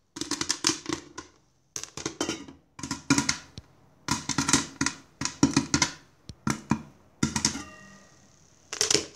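Popcorn popping and rattling inside a covered aluminium pot on the stove, heard as repeated bursts of rapid sharp clicks. Near the end comes a brief metallic ring from the pot.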